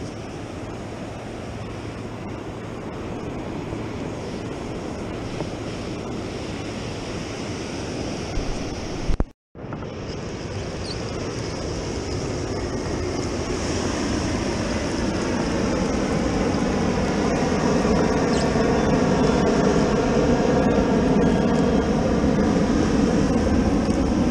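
Ocean surf breaking and washing up the beach, with wind on the microphone. The sound drops out for a moment about nine seconds in, and the surf grows louder after that.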